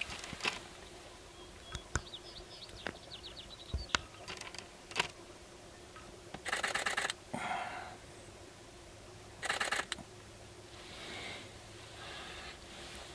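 Sharp-tailed grouse dancing on a lek: two bursts of fast rattling, each well under a second, from a displaying male's stamping feet and rattling tail feathers. Scattered sharp clicks and a short run of fast high ticking come in between.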